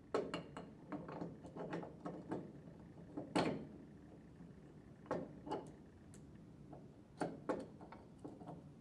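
Faint, scattered clicks and light metal knocks as the pump head, carrying its idler gear and gaskets, is fitted onto the casing of an internal gear pump. The loudest knock comes about three and a half seconds in.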